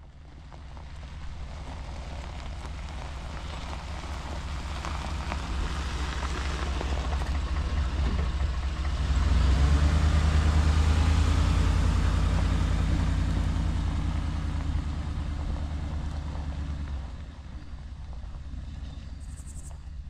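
Pickup truck driving over a gravel driveway: engine rumble with tyres crunching on the gravel, growing louder as it approaches. It is loudest as it passes close about halfway through, then drops off a few seconds later.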